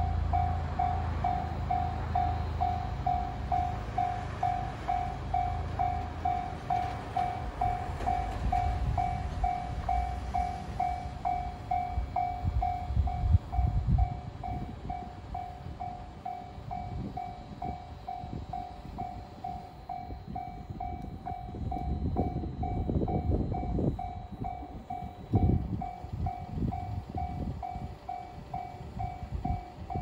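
Japanese railroad crossing alarm ringing its repeated bell-like 'kan-kan' tone, about two strikes a second, warning of an approaching train while the lights flash and the barriers are down. Low rumbles come and go underneath.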